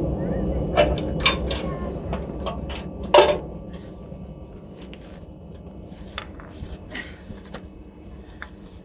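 Metal clinks and knocks of a railway screw coupling and brake-hose fittings being handled by hand as a locomotive is coupled to a passenger coach, the loudest knock about three seconds in. A low rumble fades away over the first few seconds.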